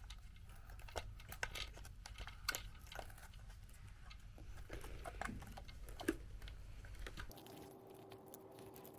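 Scattered light clicks and taps of the plastic parts of a Dyson V6 vacuum cleaner being handled and fitted together.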